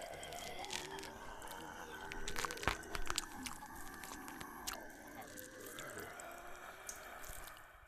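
Zombie horde sound effect: several voices moaning and groaning over wet biting, chewing and crunching, with a sharp crunch a little before three seconds in. It fades out right at the end.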